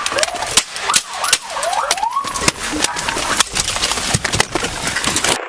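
Police car siren wailing in short rising sweeps, over a rapid scatter of sharp cracks.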